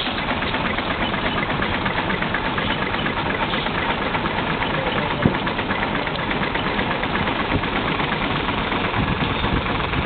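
Case 110 steam traction engine running steadily under belt, driving a sawmill: an even, rapid mechanical beat, with one sharp knock about five seconds in.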